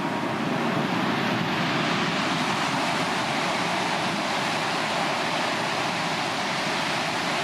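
High-speed train passing at about 300 km/h: a super loud, steady rush of air and wheel noise that holds through the pass.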